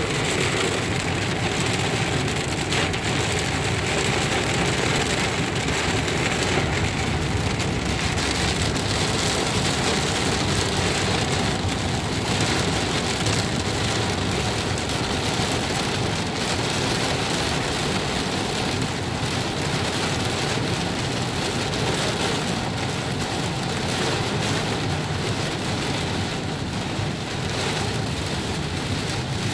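Heavy monsoon rain beating on a car's roof and windshield, heard from inside the cabin as a loud, steady hiss.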